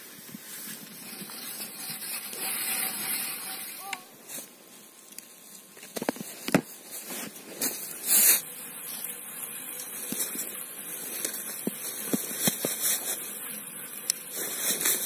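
Ice auger drilling a fishing hole through river ice: a continuous crunchy scraping with scattered clicks and knocks, and one louder knock about eight seconds in.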